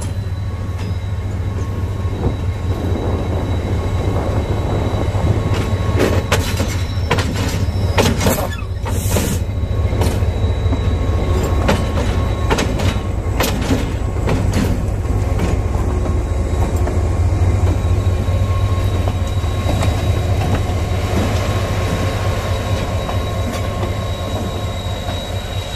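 GE RGE-24 diesel-electric locomotive passing at close range over a diamond crossing, its engine giving a steady low drone. In the middle of the pass there is a run of sharp wheel clacks as the wheels cross the rail gaps, and a thin high wheel squeal carries on throughout.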